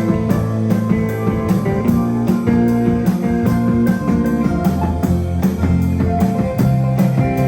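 Live band playing an instrumental break with no vocals: guitar over bass and a drum kit keeping a steady beat.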